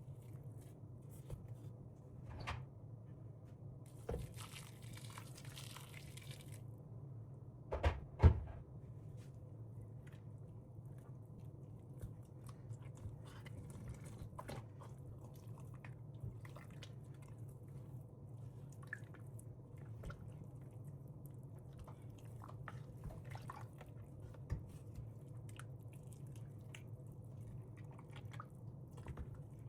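Small household handling sounds: scattered light clicks and taps, a short rush of hiss about four seconds in, and two louder knocks about eight seconds in, over a steady low hum.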